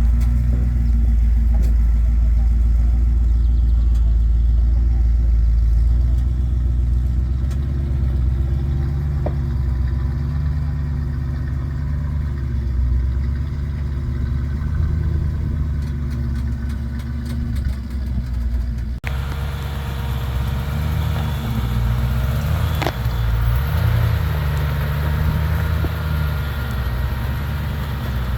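Off-road 4x4's engine running at low revs, a steady low drone. About two-thirds of the way through the sound changes abruptly, and from there the engine pitch rises and falls slightly as the throttle is worked.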